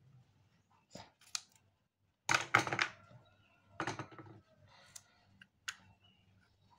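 Hands handling a strip of white adhesive tape: short rasping, crinkling handling noises, the loudest a quick run of strokes a little over two seconds in and another about four seconds in, with a few light clicks between.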